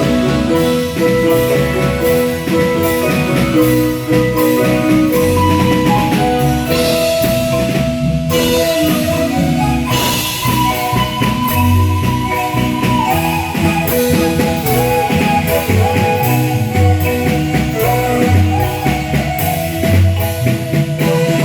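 Marimba band playing: mallets on the marimba carry the melody over changing bass notes and a steady percussion beat.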